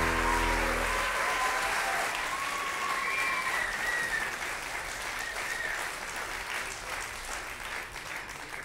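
Live concert audience applauding, with a few cries from the crowd, as the band's last chord dies away in the first second; the applause gradually fades out.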